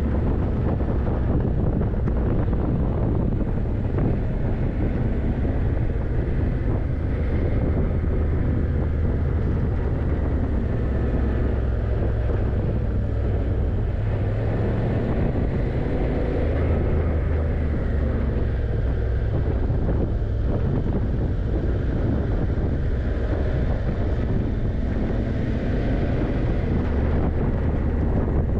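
Yamaha TDM900's parallel-twin engine running steadily as the motorcycle is ridden through curves, with wind noise on the microphone.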